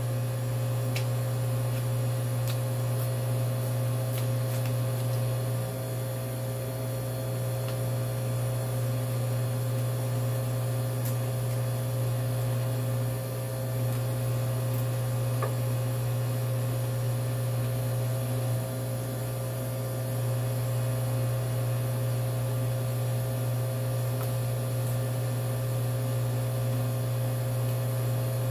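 Steady low hum of a running freezer's compressor, with a few faint clicks from handling the phone.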